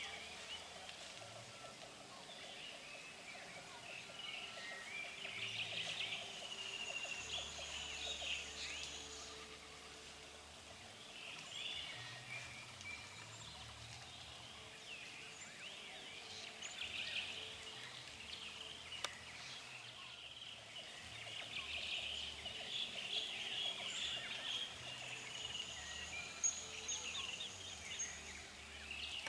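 Wild birds chirping and trilling together in an outdoor chorus, with a thin, high, steady whine coming in twice for a few seconds.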